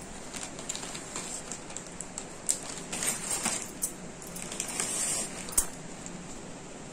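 Handling sounds: scattered light clicks and taps with two short spells of rustling, and a sharper click about five and a half seconds in.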